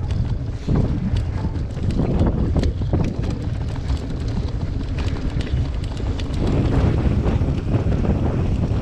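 Wind buffeting a GoPro action camera's microphone at riding speed, with many short knocks and rattles from a mountain bike rolling over the trail.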